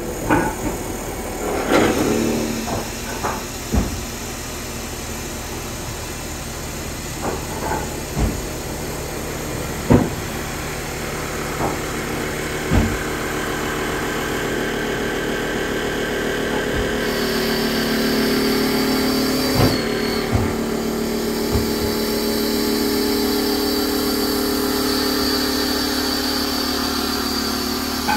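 CNC wood lathe turning a baseball bat blank: a steady machine running sound with scattered sharp knocks through the first half. About two-thirds of the way in, a higher whine joins and the sound grows slightly louder.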